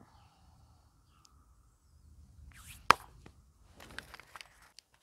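Small handling sounds from sowing seeds at a table: a short paper rustle and one sharp click about three seconds in, then a scatter of light ticks and rustles as a seed packet is handled.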